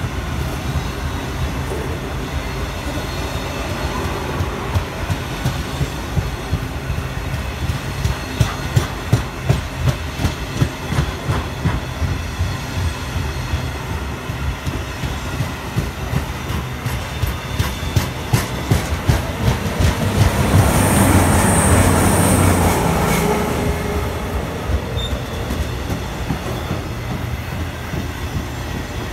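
A freight train of open box wagons passing at a steady speed: a continuous rumble with wheels clicking over the rail joints in regular groups. A louder stretch comes about twenty seconds in, with a brief high-pitched wheel squeal.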